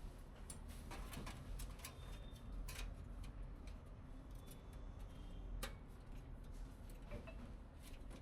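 Scattered light clicks and taps of PC hardware being handled and fitted during assembly, a few seconds apart, over a low steady hum.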